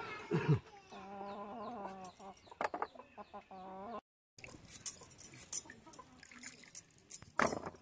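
A chicken calling with long, wavering clucks in the first half. After a short break about halfway, scattered clicks and knocks follow.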